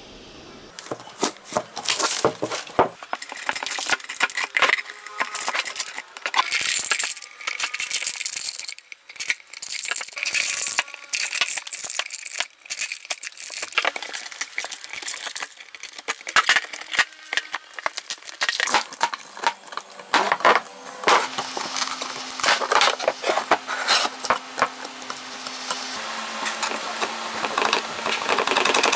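Clear packing tape being peeled off the cured epoxy-filled corners of a wooden box, a dense irregular crackling and ripping. A faint steady hum joins about twenty seconds in.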